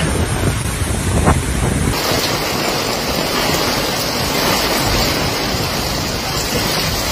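Strong storm wind buffeting the microphone with a rumbling roar. About two seconds in the sound changes abruptly to a steady hiss with less rumble.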